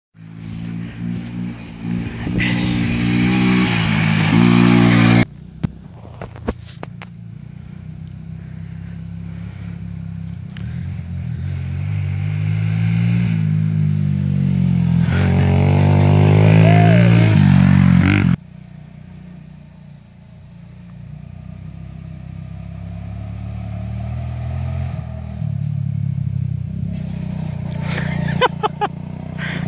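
Motocross dirt bike engines revving and pulling on a dirt track, the sound swelling and fading as bikes ride past. It cuts off abruptly about five seconds in and again about eighteen seconds in, then builds again as a bike approaches near the end.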